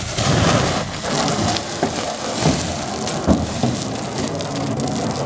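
Jet of water from a garden hose spraying onto the hot, fire-scorched steel side of a file cabinet, spattering on the metal and flashing to steam, to knock off blistered paint.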